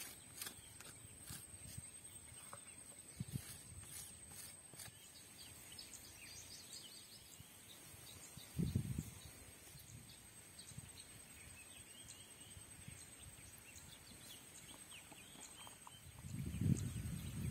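Wooden spatula scraping and tapping on a coconut roti as chili sambol (lunu miris) is spread, a run of soft clicks in the first few seconds, then low soft thumps about nine seconds in and again near the end as toppings are handled onto it. Faint bird chirps and a steady high-pitched whine sit in the background.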